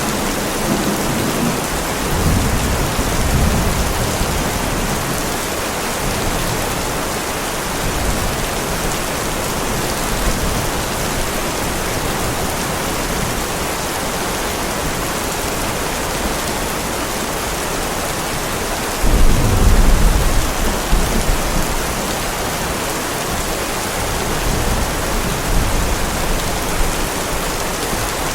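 Heavy rain falling steadily, with rolling thunder: a low rumble dying away in the first few seconds, and a louder clap about two-thirds of the way through that rumbles on for several seconds.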